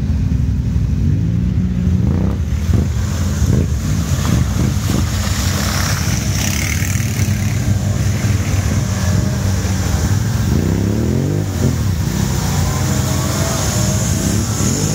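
Quad bike (ATV) engine running under load as it drives through a muddy water hole. The revs climb sharply about ten and a half seconds in.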